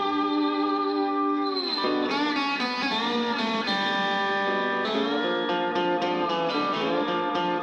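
Instrumental guitar passage from a rock song: sustained electric guitar notes that bend and slide in pitch, over a backing track, with no vocals.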